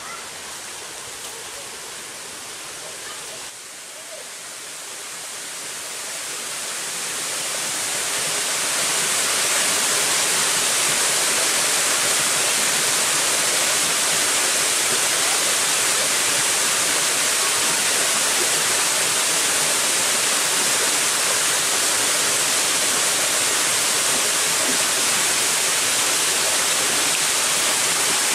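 Rushing water, a steady hiss that swells over the first several seconds and then holds at a constant level.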